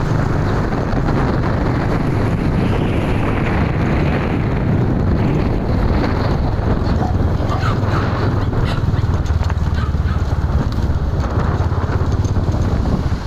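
Wind rushing over the microphone of a moving motorcycle, with its engine running steadily underneath.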